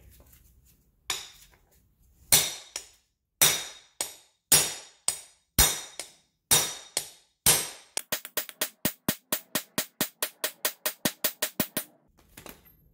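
Small claw hammer striking steel on an impact socket set over a worn rubber bushing, driving the old bushing out of a car's rear lower control arm; each blow rings sharply. About nine separate blows, then a fast run of quicker strikes, around six a second, that stops shortly before the end.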